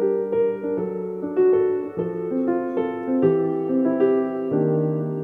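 Piano playing an instrumental passage of chords and short melodic notes, without singing.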